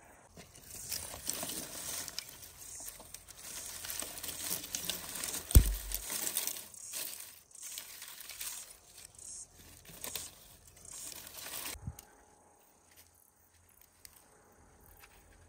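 Dry twigs rustling and crackling as they are handled and packed into a fire pit for kindling, with one heavy thump about five and a half seconds in. The crackling stops about twelve seconds in.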